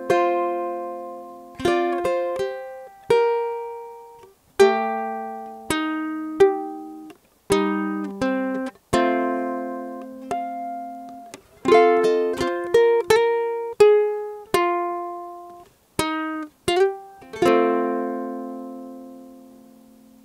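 Flight Voyager tenor ukulele played slowly fingerstyle, mixing plucked chords with single melody notes, each note ringing out and fading. It ends on one chord left to ring for about three seconds.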